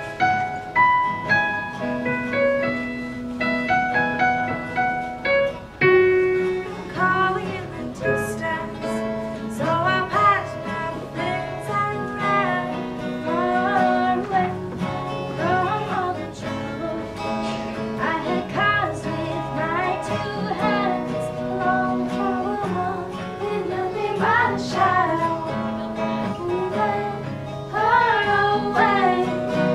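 Live acoustic band music: two acoustic guitars with a Nord Electro stage keyboard. The first six seconds or so are instrumental, then a young female voice comes in singing over the guitars and keyboard.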